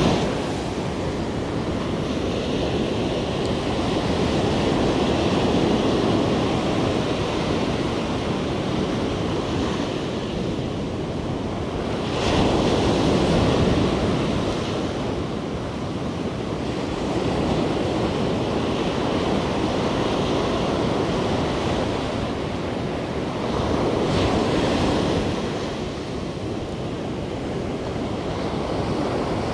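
Surf breaking on a sandy beach, a steady wash of waves that swells louder twice, about halfway through and again a few seconds before the end.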